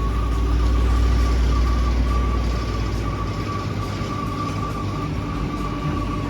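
Heavy vehicle's engine running with a reversing alarm beeping steadily, the deep engine rumble stronger in the first half.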